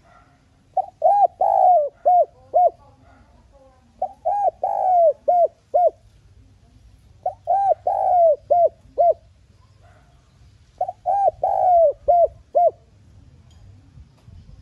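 Spotted dove cooing: four phrases, each a run of about five coo notes with a longer, drawn-out note in the middle, repeated about every three and a half seconds.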